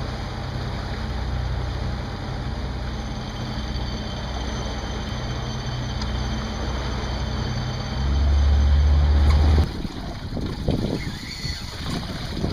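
Boat engine running steadily with a low hum. It gets louder for a moment about two-thirds of the way through, then cuts off suddenly, leaving uneven wind and water noise.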